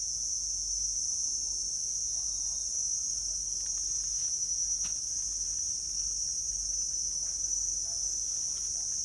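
Steady, high-pitched drone of an insect chorus, with a few faint clicks about four to five seconds in.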